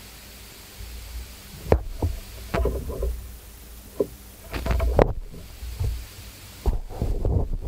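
Headphone plugs being pulled out of and pushed into a Fiio Q5 amplifier's outputs: several knocks and crackling bursts, the loudest about five seconds in and near the end, over a steady hiss of amplifier output noise.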